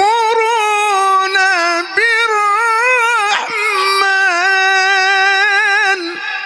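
A man reciting the Quran in the melodic mujawwad style, drawing out long ornamented notes that waver in pitch, in three long phrases with brief breaks. The voice is amplified through a microphone, and its echo trails off after he stops near the end.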